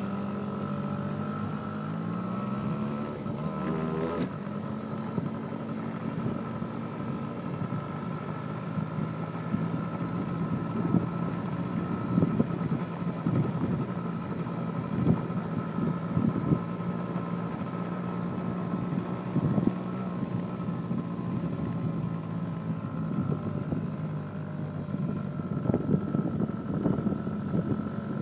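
Small youth ATV engine running as it is ridden, rising in pitch over the first few seconds as it picks up speed, then holding a steady drone. Scattered short knocks and bumps sound over it.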